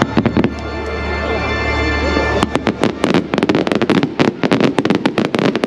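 Aerial fireworks shells bursting in the sky: a few bangs at first, then a rapid barrage of bangs and crackles from about halfway in, with music playing underneath.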